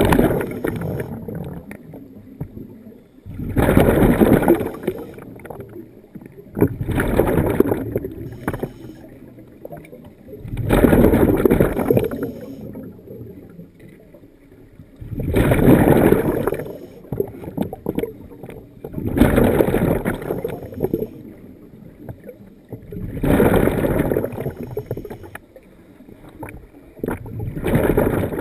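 Scuba diver breathing through a regulator underwater: a burst of exhaled air bubbling out about every four seconds, with quieter stretches between the breaths.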